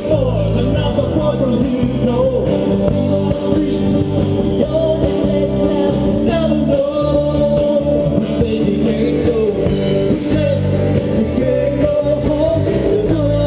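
Live rock band playing steadily: electric and acoustic guitars over a drum kit.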